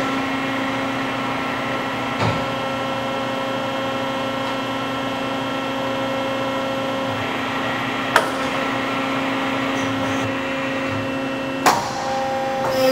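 Horn Metric 65MRE-L hybrid CNC tube bender running with a steady hum, broken by a few sharp clicks. The hum cuts out briefly after the last click near the end.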